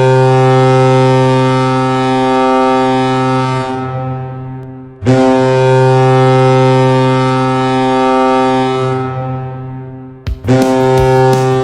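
Ice hockey arena goal horn blowing loud, one low steady note: two long blasts that each fade away, then a third that starts with a couple of short stutters near the end.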